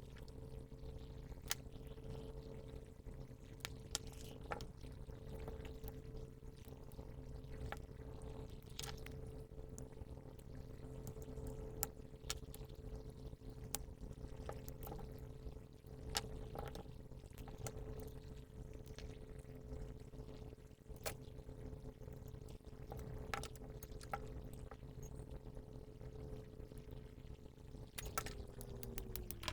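A small electric motor or fan hums steadily and faintly, with scattered light clicks and taps of tools on parts, and spins down with a falling pitch at the very end.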